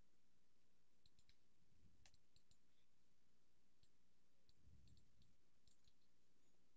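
Near silence with a faint low hum, broken by scattered faint clicks of a computer mouse and keyboard as a tab page is renamed in an editor.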